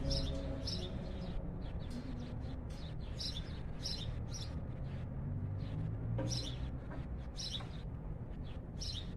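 A small bird chirping nearby, short high chirps repeated at irregular intervals, over a low steady background rumble.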